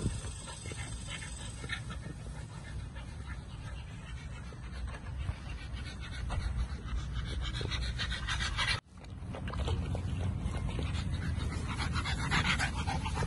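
American bully puppies panting as they play-wrestle in grass, and near the end one lapping water from a metal bowl. The sound drops out for an instant about nine seconds in.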